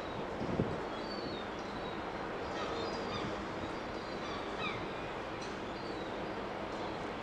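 Scattered short high bird chirps over a steady low background rumble, with a soft low thump about half a second in.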